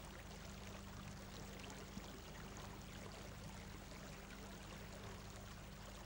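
Faint, steady background hiss with a low electrical hum underneath, and one small click about two seconds in.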